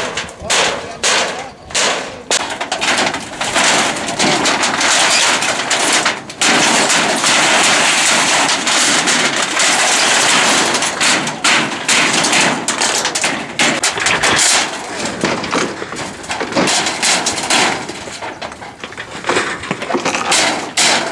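Corrugated zinc roofing sheets banging and clattering as they are pulled down and handled: a run of sharp loud bangs, then several seconds of dense continuous metallic rattling, then scattered bangs again.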